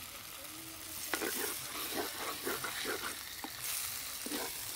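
Mushroom and pea curry sizzling in a clay pot as a little water goes into the hot masala, then a wooden spatula scraping and stirring against the clay in quick repeated strokes from about a second in.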